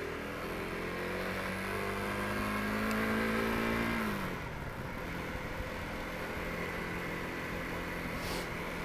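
Motor vehicle engine accelerating: its pitch climbs steadily for about four seconds, then drops off sharply as the throttle closes, and it runs on at a steady lower pitch.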